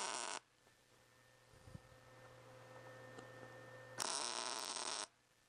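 MIG welder laying plug welds through holes in sheet metal, the arc crackling and buzzing. One weld's burst cuts off just after the start, and a second burns for about a second from about four seconds in.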